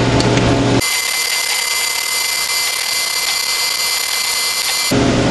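Steady high-pitched tones over a hiss, lasting about four seconds and starting and stopping abruptly; the low room sound drops out while they play.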